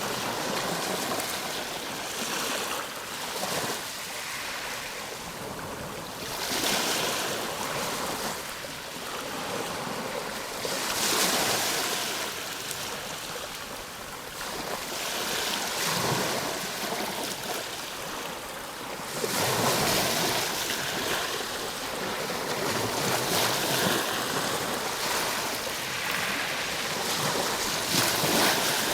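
Ocean waves breaking and washing ashore, a steady rush of surf that swells louder every few seconds as each wave comes in, then falls back.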